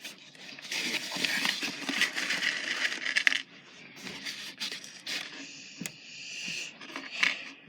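Small rocks clattering and clinking against each other in a container as a hand rummages through them, loudest for the first few seconds, then quieter scattered clicks.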